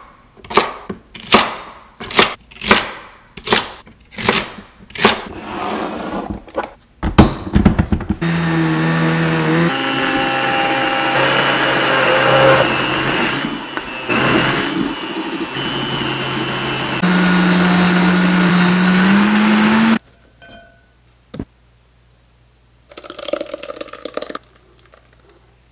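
A kitchen knife chopping celery stalks on a wooden cutting board, a steady cut a little more often than once a second, then a thunk. A high-powered countertop blender then runs for about twelve seconds pulverising the celery, its motor pitch stepping up and climbing before it cuts off suddenly. Near the end, the blended celery pulp is poured from the blender jar into a straining bag.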